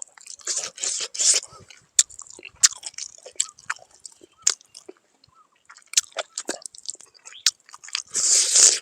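A person biting and chewing cooked pork with the mouth close to the microphone: wet clicks and crunches at an uneven pace, and a longer, louder crunch near the end.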